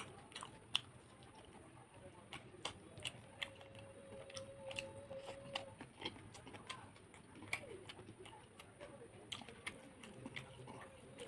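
Close-up eating sounds: chewing and lip smacking with many short, irregular wet clicks, from a mouthful of spicy chicken-feet curry with rice. A faint held hum sounds briefly about four seconds in.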